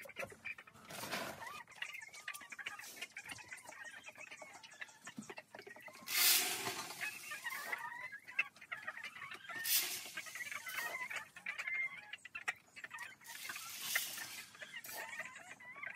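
A flock of brown laying hens clucking throughout, with a few short, louder rustling bursts in between, the loudest about six seconds in.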